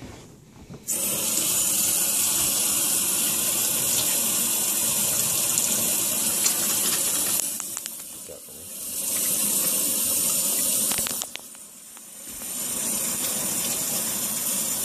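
Kitchen faucet running into a stainless steel sink, a steady rush of water that starts about a second in. It dies down and comes back twice.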